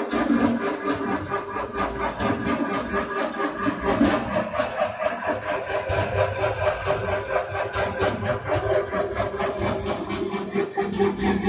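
Electrically driven maize dehusking and shelling machine running steadily: a constant motor hum with a fast, even rattle from its rotating drums. A lower hum joins near the end.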